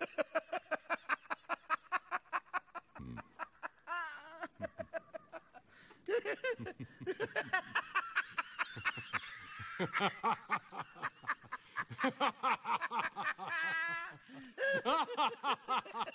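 A man laughing hard in quick, rhythmic bursts. About six seconds in, a second, lower laugh joins him and the laughter grows louder.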